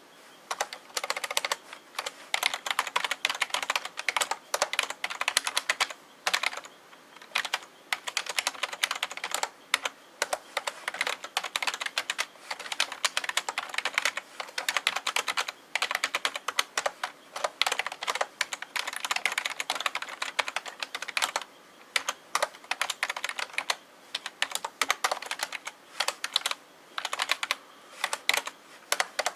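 Typing on an NEC KFRFEB212D keyboard with numeric keypad, which its owner takes to be an ordinary membrane keyboard: fast runs of key presses, each clicking, with short pauses between bursts.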